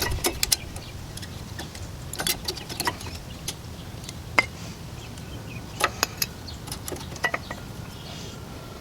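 Light metal clicks and clinks at irregular intervals as rear brake hardware, pads and clips, is handled and fitted on the caliper bracket, over a steady low background hum.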